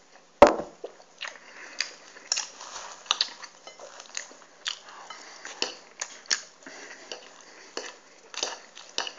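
Metal knife and fork clinking and scraping against a plate while cutting quickly through a stack of pancakes, with chewing between the clicks. A single loud knock about half a second in is the loudest sound.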